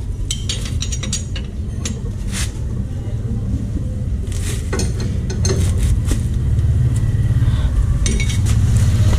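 Low, steady rumble of an idling engine that grows louder over the last few seconds, with scattered light metallic clinks and taps.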